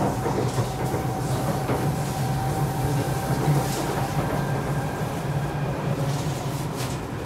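Kawasaki C751B MRT train heard from inside the carriage while running between stations: a steady rumble of wheels on the rails with a few faint, steady whining tones, easing slightly in loudness near the end.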